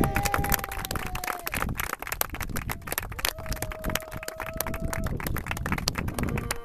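A small group of people clapping in irregular applause, with two long, steady held tones during it.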